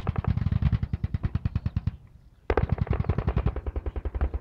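Machine-gun fire: sustained automatic bursts at about ten rounds a second, with a half-second pause about two seconds in before the firing resumes.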